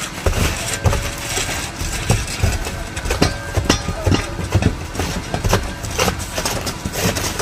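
A roofing crew working on an asphalt-shingle roof: irregular knocks, taps and scrapes of tools on the roof, several a second, over a steady engine running.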